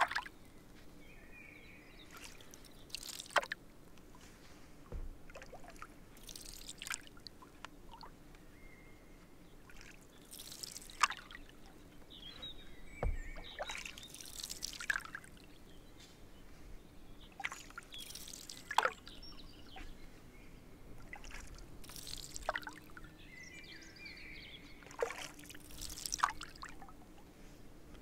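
Canoe paddle strokes on calm water: every two to four seconds a quiet dip and splash, followed by a trickle of water dripping off the blade.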